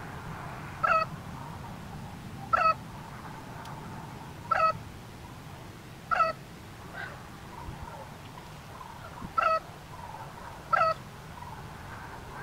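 An animal's short call, repeated six times at intervals of about one and a half to two seconds, over a low steady background hum.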